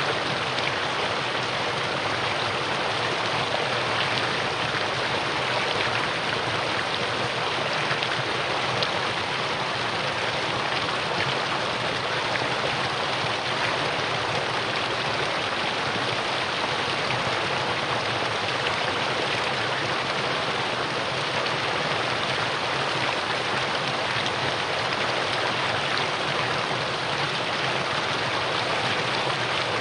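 Mountain stream water rushing over rocks, a steady unbroken splashing and gurgling.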